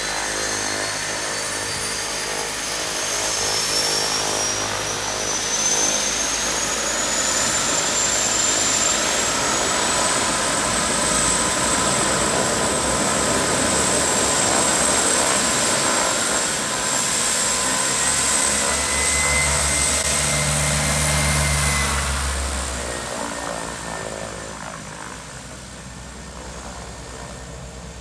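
De Havilland Canada DHC-6 Twin Otter's twin turboprop engines running close by, propeller noise with a high turbine whine that rises in pitch over the first ten seconds as power comes up. The sound fades over the last few seconds as the plane taxis away.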